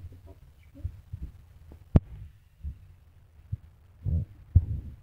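Handling noise from a smartphone held close to its microphone: soft low thumps and knocks scattered through, with one sharp tap about two seconds in.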